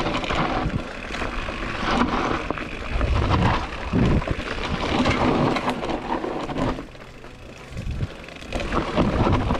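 Mountain bike descending a rough dirt singletrack: tyres rolling over dirt and leaves, the bike rattling and knocking over bumps, with rumbling surges of wind and vibration on the camera. The noise drops for about a second near the end, then picks up again.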